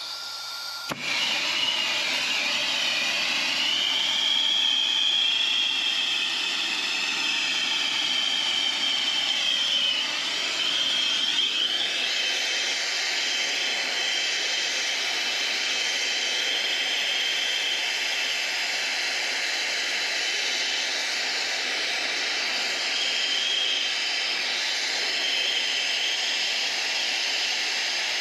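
Brazing torch lit about a second in, then a steady rushing hiss with a faint wavering whistle as the flame heats a copper refrigerant line joint on an evaporator coil for brazing.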